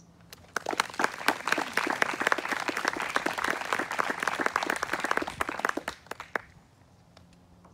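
Audience applauding, starting about half a second in and fading away at around six seconds.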